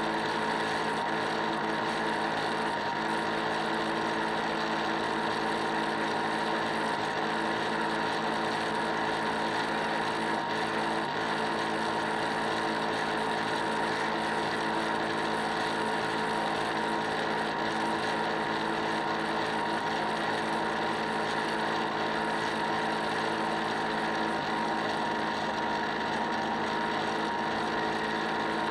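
Model boat's motor running steadily: a constant whine with several held tones over an even rushing noise.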